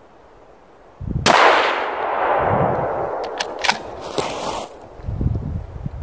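A single bolt-action rifle shot about a second in, its report rolling on in a long echo that fades over about three seconds, with a few sharp clicks near the end of it.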